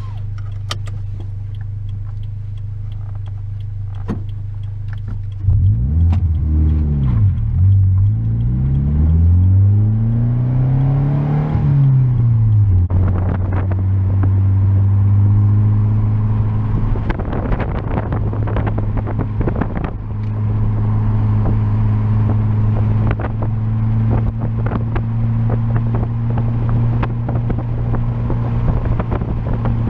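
Car with a newly fitted catback exhaust, its Y-pipe splitting to twin mufflers, idling steadily. About five seconds in it gets louder and pulls away, the engine note rising and dropping through the gears, then settles into a steady drone while cruising.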